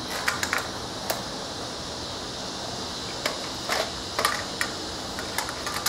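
Scattered light clicks and taps of a steel tape measure and pencil being handled and laid on wooden boards, over a steady background hiss.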